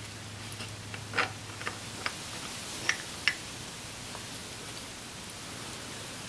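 A handful of sharp clicks and small taps in the first half as the oil filter cover is turned off the underside of a Kymco Downtown 300i scooter engine, with engine oil starting to trickle and drip into the plastic drain pan.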